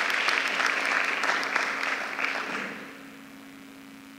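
Audience applauding, the clapping dying away about three seconds in and leaving a steady low electrical hum.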